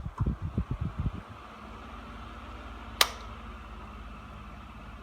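Electric fan running with a steady hum, and a single sharp click of its mode switch about three seconds in as it is set to another speed. Low, uneven thumps in the first second or so.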